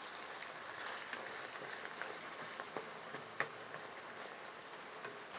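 Chile-marinated ground beef frying in hot oil in a clay cazuela: a soft, steady sizzle with scattered faint crackles.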